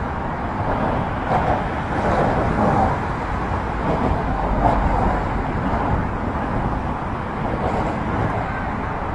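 Steady road traffic noise from cars crossing the bridge roadway below the walkway, with a low rumble that swells a little around the middle.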